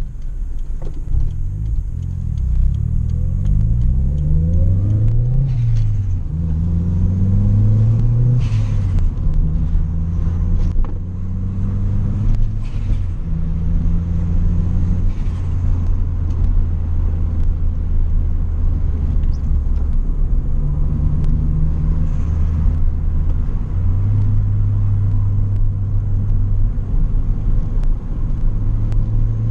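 A turbocharged Toyota Corolla's four-cylinder 4E-FE engine, fitted with a CT20 turbo and a 2.5-inch exhaust, heard from inside the car. It revs up and drops back twice in the first several seconds, then runs mostly steadily. Short airy bursts come several times, typical of turbo flutter when the throttle closes under boost.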